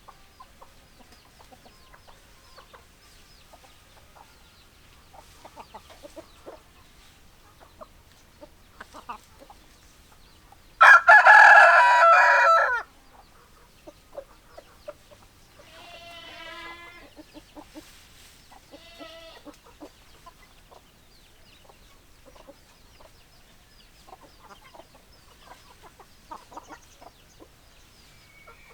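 Chickens: soft, sparse hen clucks throughout, and one loud rooster crow lasting about two seconds, a little over ten seconds in. Some quieter, wavering drawn-out calls follow a few seconds later.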